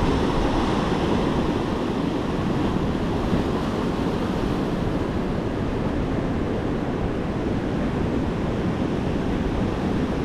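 Surf breaking on a beach, a steady rush of waves, with wind buffeting the microphone.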